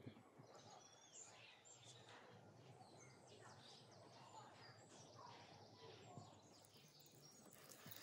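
Very quiet outdoor background with faint birds chirping now and then.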